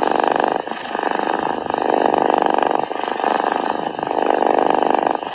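Sleeping Angora cat purring, a continuous rumbling purr that swells and dips with each breath in and out, about once a second.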